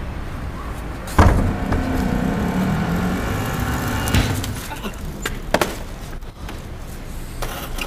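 Sport motorcycle engine running as the bike rides up, its note coming in suddenly and loudly about a second in and wavering with the throttle for about three seconds. A few sharp knocks follow.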